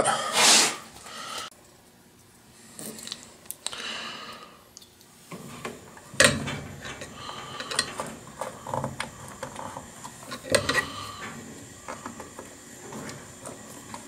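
Hand screwdriver driving a small screw into the furnace's sheet metal to mount a replacement limit switch: scattered, irregular clicks and scrapes of metal on metal.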